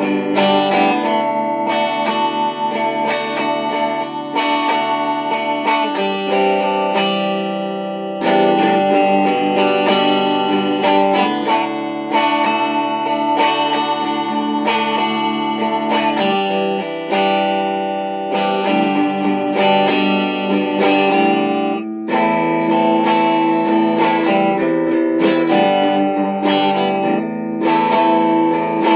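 LP Junior-style solid-body electric guitar playing a tone sample: plucked and strummed chords that ring out clearly, changing every second or two.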